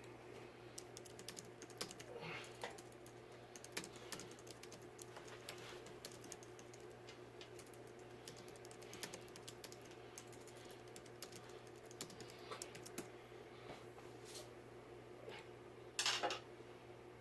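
Light, irregular clicking and tapping of small hardware being handled during fan assembly, over a steady low hum, with a brief louder clatter near the end.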